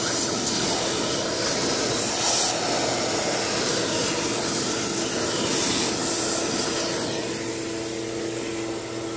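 Clausing 8520 vertical mill running steadily under a loud hiss from a shop-vacuum hose sucking aluminium chips out of the machined pocket. The hiss swells twice, near the start and about two thirds of the way in.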